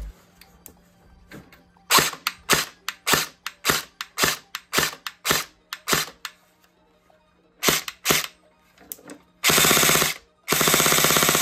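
Umarex HK 416 low-power electric airsoft gun (LPAEG) firing on an 11-volt LiPo battery: about a dozen single shots at roughly three a second, then two short full-auto bursts near the end, the second about a second and a half long.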